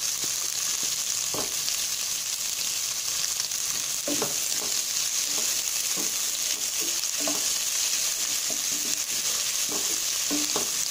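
Sliced onions sizzling in hot oil in a pot as they start to sauté, stirred with a wooden spatula that knocks and scrapes against the pan now and then.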